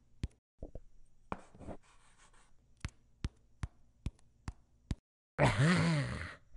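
Steady, evenly spaced ticking, about two ticks a second, with a brief rustle about a second in. Near the end a short voice sound with wavering pitch breaks in over it.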